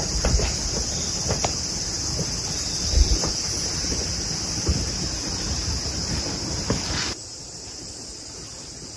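Outdoor ambience: a steady high-pitched insect drone over wind rumbling on the microphone, with a few light knocks. It cuts off abruptly about seven seconds in, leaving a quieter hiss.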